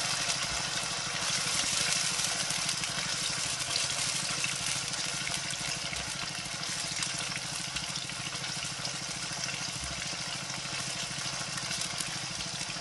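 Fish-sauce-marinated chicken thigh pieces sizzling steadily in hot oil in a wok over medium heat, with a spatula moving through them.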